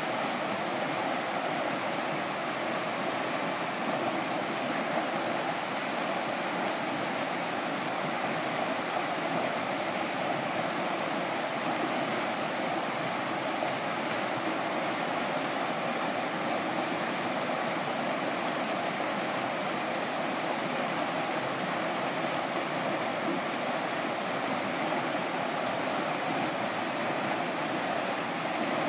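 Whitewater rapids rushing steadily, an even churning noise that does not change or break.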